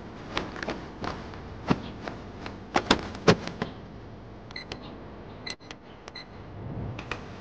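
Knocks and clicks as laundry and a plastic basin are handled at a top-loading washing machine, then several short electronic beeps from the machine's control panel as its buttons are pressed.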